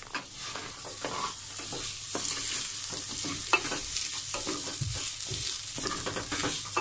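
Rice and vermicelli sizzling in hot oil in a stainless steel pot, stirred and scraped with a wooden spoon: the grains toasting in the oil for pilaf.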